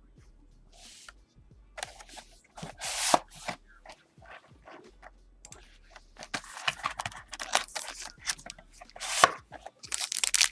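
A sealed trading-card box and its pack being opened by hand: plastic wrapping and card stock crinkling, tearing and rubbing in irregular bursts.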